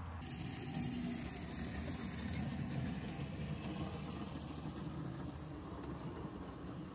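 Engine of a 7¼-gauge miniature locomotive running steadily as it rolls past, coming up just after the start.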